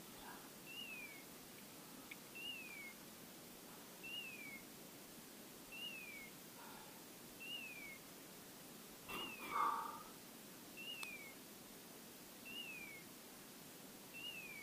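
English setter's beeper collar in point mode, repeating a short electronic call that rises then falls, evenly about every second and three-quarters: the dog is standing on point. Faint rustling between the calls, loudest about two-thirds of the way through.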